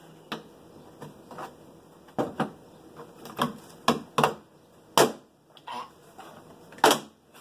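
Irregular sharp clicks and knocks, a dozen or so, from hand work on a Jeep Wrangler TJ's interior door panel and handle parts; the loudest come about five seconds in and near the end.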